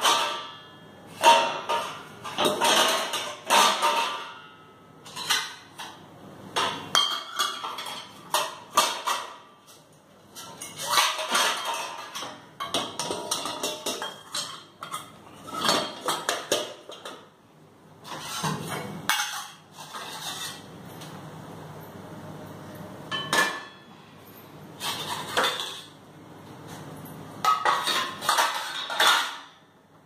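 Stainless steel pots, lids and plates clanking and clinking against each other and the wire rack of a Bosch dishwasher as they are loaded into the lower basket, in irregular clatters with a quieter spell partway through.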